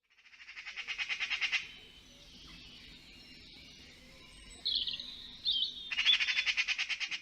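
A bird chattering: a fast rattling call that builds up over the first second and a half, a few sharp squawky chirps in the middle, then a second long rattle near the end.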